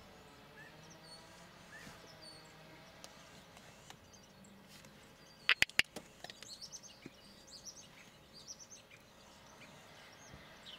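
Small birds chirping faintly, the calls coming more often in the second half. A quick run of three or four sharp clicks sounds about halfway through.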